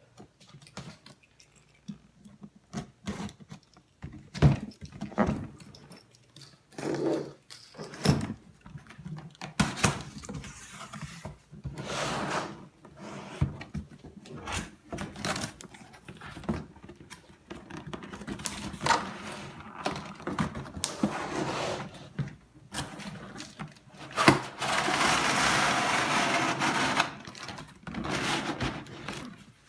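Cardboard box and packaging being opened and handled: scattered taps, knocks and scrapes, with a steady rustling noise lasting about two seconds near the end.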